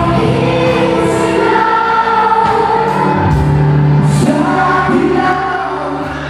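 Live band music with several voices singing together, in the way of a crowd singing along with the band.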